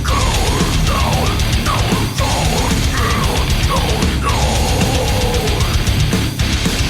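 Heavy metal music: distorted guitars and drums playing loud and dense, with bending, gliding lead lines over the top.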